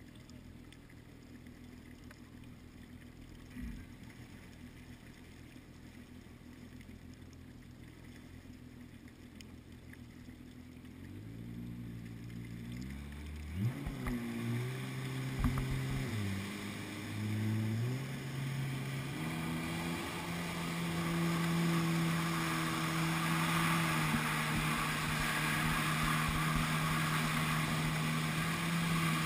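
Jet ski engine idling low, then revving up and down from about halfway through and settling into a steady high running tone as the craft gets up to speed. Rushing water spray and wind grow louder under the engine in the last part.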